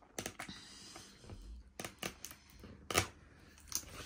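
Scattered light clicks and crinkles of a large toy egg's packaging being handled and picked at with the fingers, irregular, the loudest click about three seconds in.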